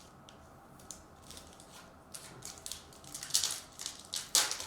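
Chrome trading cards being handled and slid across one another: faint clicks at first, then a run of short swishes and scrapes that grows louder in the second half.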